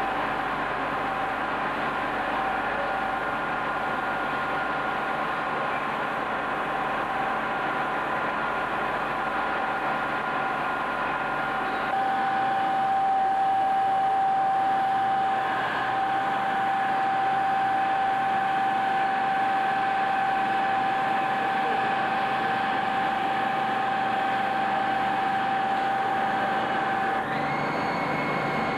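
Lathes running in a production machine shop, with a steady drone and a constant high whine. The mix shifts abruptly about twelve seconds in and again near the end.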